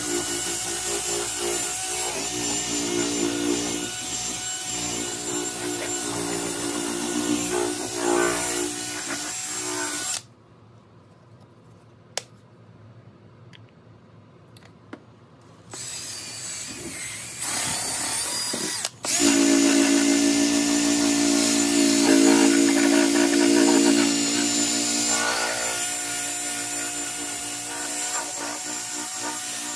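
Cordless drill spinning a buffing pad against a plastic light-bar lens: a steady motor whine with the pad rubbing on the plastic. It cuts off about ten seconds in and comes back in stages from about sixteen seconds, louder than before.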